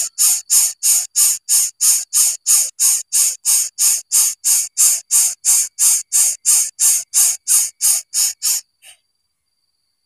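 Coucal nestling hissing in short, even breath-like pulses, about three a second, while begging to be fed. The hissing stops abruptly near the end.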